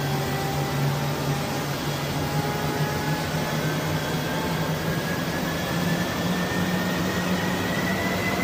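Jet aircraft on the ground with its engine running: a steady rushing noise over a low hum, with a turbine whine slowly rising in pitch.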